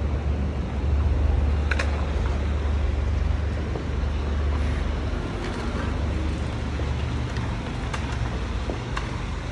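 Steady low rumble of city road traffic, with a few light clicks scattered through it.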